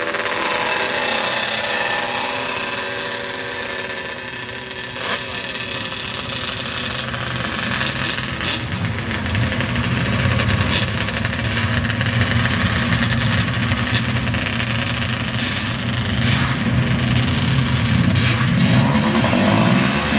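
Drag vehicle engine running at a fairly steady idle, with a few sharp clicks; it grows louder over the second half.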